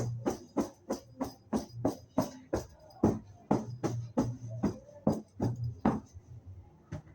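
A rapid run of sharp percussive strikes, roughly three a second, with a jingling ring after each, stopping about a second before the end.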